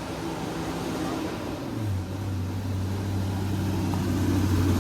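A vehicle's engine running steadily. Its low hum grows stronger about two seconds in, and the sound gets gradually louder.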